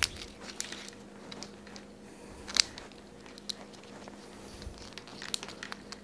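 Faint clicks and rustling of insulated wires being worked into a small 3D-printed plastic loom installation tool by hand, with one sharper click about two and a half seconds in.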